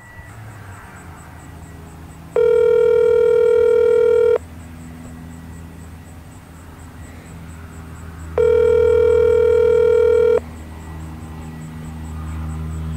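Phone ringback tone playing through a smartphone's speaker: two steady rings of about two seconds each, four seconds apart, as the call rings unanswered at the other end.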